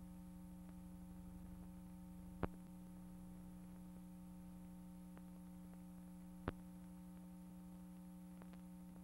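Faint steady electrical hum with two sharp clicks, the first about two and a half seconds in and the second about four seconds later.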